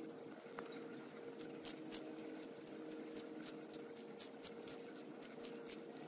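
Sulcata tortoise biting into romaine lettuce: a quick run of crisp crunches, about three a second, from about a second and a half in, over a steady low hum.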